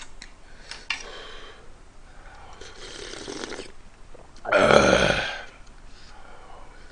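A person slurping ramen broth from a metal ladle: one loud slurp lasting under a second, about two-thirds of the way in, with fainter breathing and small clinks before it.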